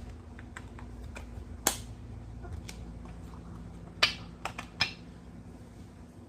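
Sharp clicks and taps from handling a toy RC car's plastic parts and its small screws by hand: one loud click about two seconds in, then a quick cluster of four clicks a little past the middle, over a low steady hum.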